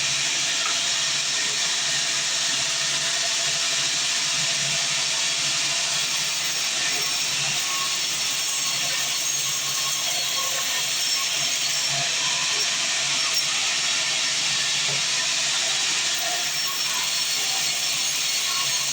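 Band sawmill blade cutting through a long mahogany log, a steady hiss that holds an even level throughout.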